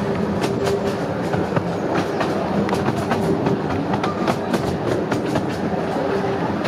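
Ruislip Lido Railway's 12-inch gauge miniature train running, with a steady low hum and frequent clicks of the wheels over the rail joints.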